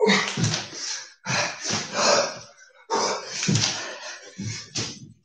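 Repeated thuds and scuffs of a person's feet and hands hitting the floor during fast burpee-style jumps, about once a second.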